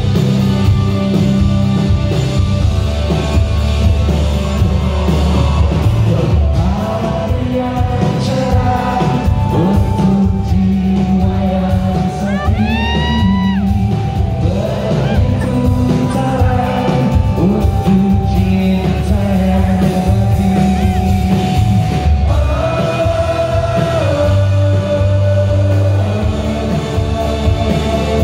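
Live pop-rock band playing loudly: a male lead singer sings over electric guitar and a heavy low bass beat, his voice rising into a held note about halfway through.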